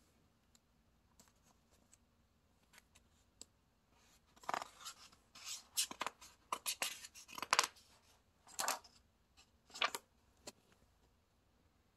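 A paper page of a picture book being turned by hand: several bursts of paper rustling and scraping from about four seconds in until near the end, after a few faint clicks.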